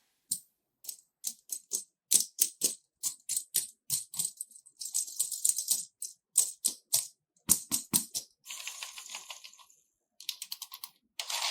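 Slime being squeezed and worked by hand, giving a run of sharp, irregular clicks and crackles with short silent gaps between them.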